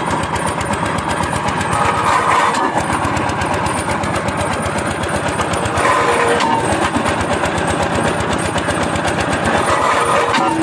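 Engine-driven winch of a tripod piling rig running steadily with a fast, even chugging, working the boring tool to dig a pile hole. A brief higher-pitched sound recurs about every four seconds.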